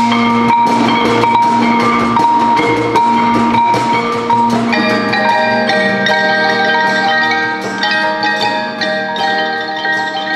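Percussion ensemble playing, with pitched mallet instruments struck in a quick, steady rhythm over ringing sustained notes. More pitched parts join about five seconds in, and the texture gets fuller.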